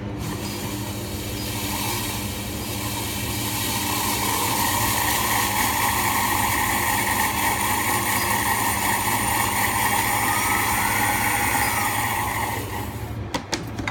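Industrial blender motor running steadily as it grinds cornflakes into crumbs. It builds up over the first few seconds, holds steady, then winds down near the end.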